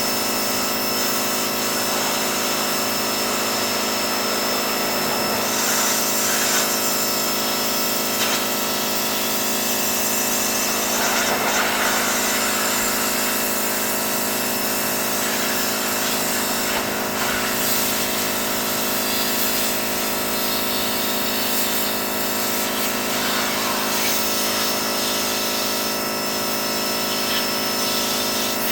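Pressure washer running steadily with a constant machine hum and a hiss of spray. The hiss brightens now and then.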